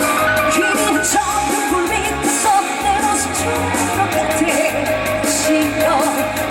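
Live performance of an upbeat trot song: band backing with a steady drum beat and a singer's voice over it.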